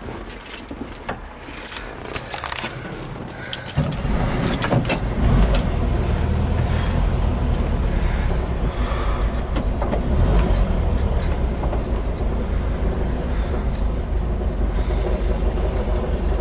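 Keys jingling and clicking in the ignition. About four seconds in, the 1970 Volkswagen van's rebuilt air-cooled flat-four engine with dual carburetors catches at once and settles into a steady idle.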